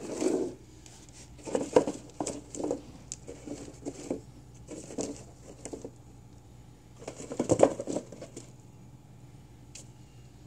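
Thin plastic flower pot being handled and shifted about on spread newspaper: several short bursts of crinkling, rustling and light tapping, then one small click near the end.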